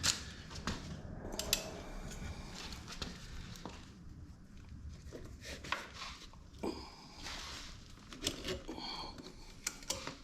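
Exhaust spring being stretched with a spring-puller tool and hooked onto the mounting hooks of a pit-bike exhaust: scattered metal clicks, clinks and scraping, with a brief metallic ring near the end.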